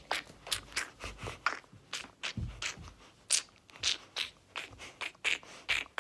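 Irregular rustling and scraping, several short noises a second, from a phone being handled and swung around as it films.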